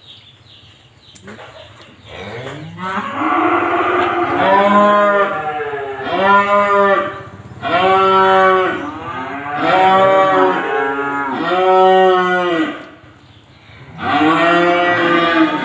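Five-month-old beef calves mooing: a run of about five calls, each a little over a second long, one after another, then a pause and another moo near the end.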